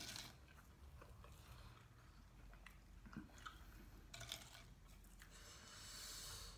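Faint chewing of homemade burrito, soft wet mouth sounds with a few small clicks and crunches scattered through.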